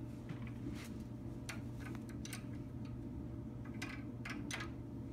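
Scattered light metallic clicks of a hex-key driver and wrench working a rocker arm's adjusting screw and lock nut while setting valve clearance on a VW air-cooled engine, over a steady low hum.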